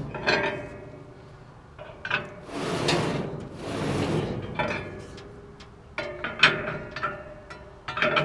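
Massey No. 12 hay baler's plunger and connecting arm being cycled by hand, the plunger sliding along its greased runners. It makes metal scraping and rubbing sounds that swell and fade several times, with a few short clanks and brief squeals.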